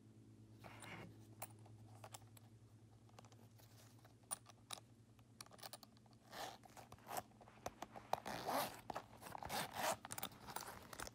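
Zip-around zipper of a Louis Vuitton Zippy Organizer wallet being pulled open in a run of short, quick zipping strokes through the second half. Light clicks and rustles from handling the wallet come before.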